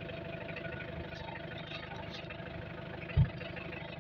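An engine idling steadily with a fast, even low pulse and a steady hum. A single dull thump stands out about three seconds in.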